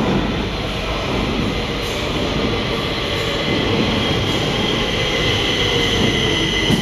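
Stockholm metro train approaching and pulling into an underground platform: the running noise of wheels on rails with a steady high squeal.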